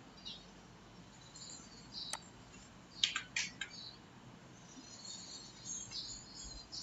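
Faint computer mouse clicks, one sharp click about two seconds in and a quick cluster about three seconds in, over quiet room tone with faint high chirping in the background.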